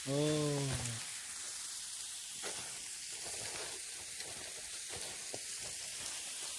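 Steady hiss with scattered faint crackles from a lit charcoal barbecue grill, after a short spoken sound from a man in the first second.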